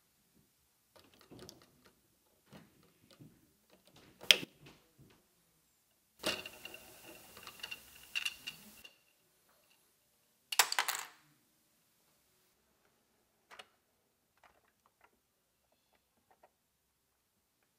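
Plastic Lego parts being handled and moved: scattered light clicks and rattles, with a sharp click about four seconds in, a longer rattling stretch a couple of seconds later, and a short louder clatter near eleven seconds.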